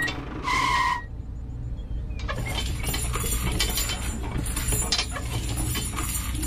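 Small metal chain clinking and jingling as it is handled and hooked between two model tractors, a dense patter of light clicks from about two seconds in. A short high beep sounds about half a second in, over a low steady hum.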